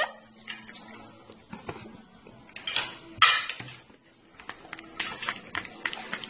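A fork clinking and scraping against a ceramic plate in a run of light, uneven taps. Two louder, noisy bursts come close together about three seconds in.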